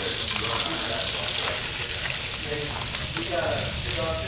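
Swordfish fillets searing in a hot cast iron skillet, a steady sizzle of frying.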